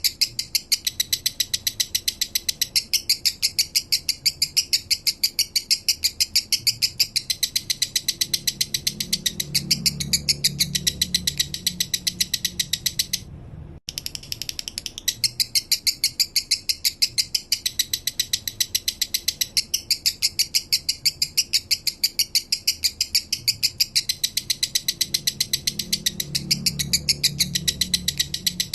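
Male lovebird singing its 'minor' song: a long, rapid, even run of high-pitched chirps that sounds almost like a ratchet clicking. It breaks off briefly about halfway through and then starts again the same way.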